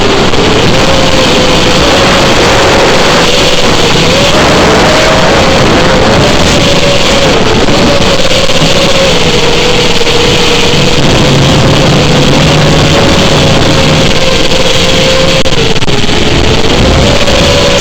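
FPV drone's motors and propellers buzzing loudly over rushing air noise, the motor whine wavering up and down in pitch with the throttle.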